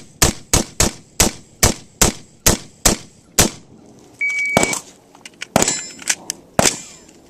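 AR-15 carbine firing a rapid string of about nine shots, roughly three a second, for the first three and a half seconds. A short electronic shot-timer beep about four seconds in, followed by a few more scattered shots and metallic clanks.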